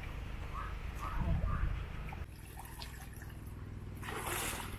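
Water sloshing and splashing as people wade through a shallow muddy canal, with a louder burst of splashing near the end.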